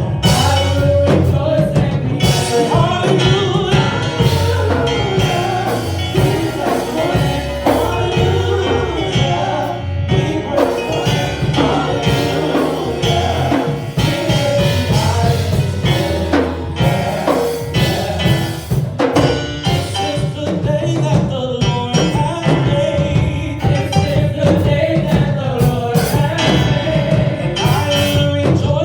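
Live gospel praise-and-worship music: singers over a band with bass and drums keeping a steady beat.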